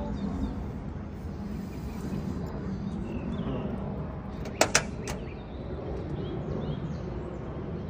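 A pickup truck's driver door latch clicking twice in quick succession about halfway through as the handle is pulled and the door is opened, then a softer click. Steady outdoor background with faint bird chirps underneath.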